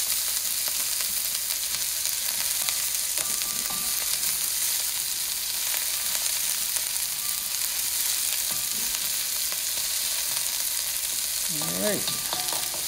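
Diced carrots and red onions sizzling steadily in a cast iron wok on high heat, with a slotted spatula now and then stirring them. The dry, hot sizzle is the sign of a proper stir-fry, with nothing wet cooling the pan.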